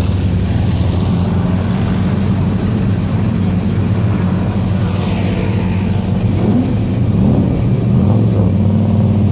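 Car engine running loudly at a steady speed, then revved up and down a few times in the second half.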